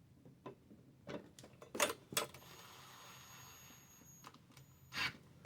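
Small metal screws and hardware clicking and clinking as they are handled during assembly, with a few sharper knocks. About two seconds in, a faint steady whine runs for about two seconds, like a cordless driver running briefly.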